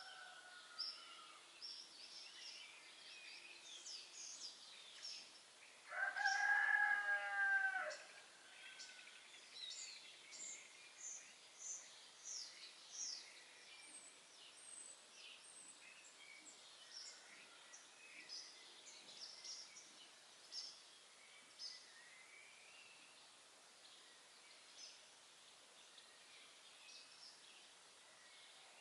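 Songbirds chirping and singing with many short high notes, and one louder, drawn-out call lasting about two seconds about six seconds in.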